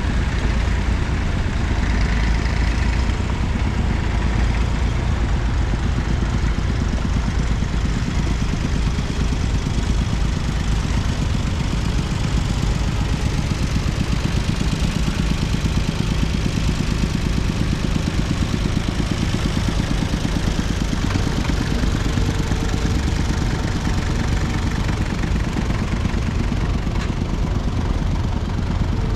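Engines of several vintage tractors running steadily as a procession of old Massey Ferguson and Fordson tractors drives by.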